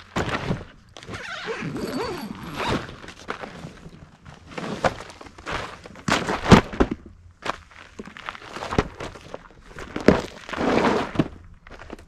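Irregular thunks, knocks and scuffs of an inflatable paddleboard and its hand pump being handled and set up, with a couple of longer rushing sounds.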